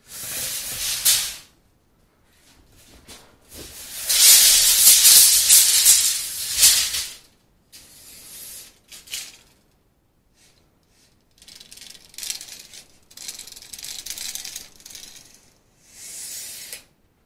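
Craftsman Sidewinder 25 ft tape measure retracting its full blade: a hissing, rattling rush of the tape sliding over the concrete floor and winding into the case. The rush comes in spurts, one long loud run a few seconds in and then shorter stop-and-start bursts as the case is jiggled to draw the last of the tape in.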